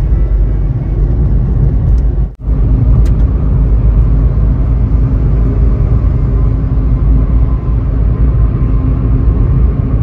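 Steady low road and engine rumble heard from inside a car cruising at highway speed. The sound drops out for a moment about two seconds in.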